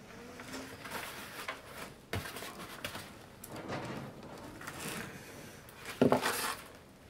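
Woven bamboo winnowing basket (ajiro-mi) creaking and rustling as its plaited bamboo strips are pressed down and bent by hand and body weight. Irregular crackles and scrapes, with the loudest creak about six seconds in.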